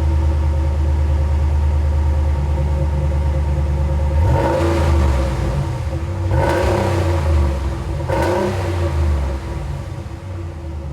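Dodge Ram 1500's 5.7 L Hemi V8 running through a freshly installed Flowmaster Outlaw stainless dual-outlet muffler: a deep steady idle, blipped three times about two seconds apart, then settling back to idle.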